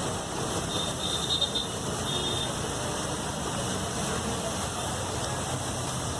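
Egg fried rice frying on a large flat griddle, a steady sizzle with a spatula stirring and scraping through it, over continuous street noise. A few brief high squeals come about a second in.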